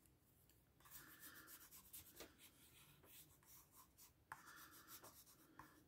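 Faint scratching of a watercolour pencil shading on paper, in two short spells.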